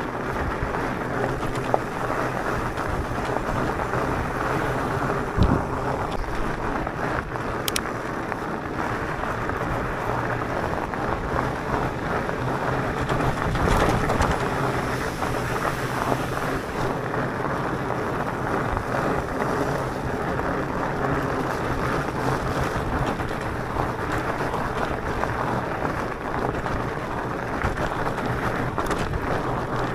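Fat-tyre electric mountain bike rolling over a coarse gravel road: a steady rumble and crunch of the tyres on the gravel with wind rushing over the microphone, and an occasional knock from a bump.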